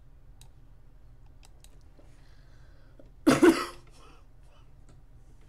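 A person coughs once, a short double burst about three seconds in, the loudest thing here. Before it come a few faint clicks of a computer mouse.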